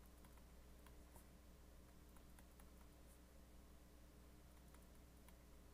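Near silence: a faint steady electrical hum, with scattered faint ticks of a stylus on a tablet screen while writing.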